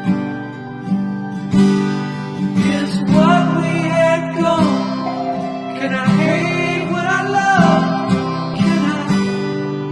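Background music: strummed acoustic guitar, with a singing voice coming in about three seconds in and fading out near the end.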